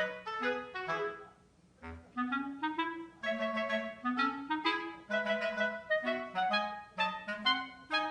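Background music led by a clarinet-like woodwind playing a bouncy melody of short notes, with a short pause about a second and a half in.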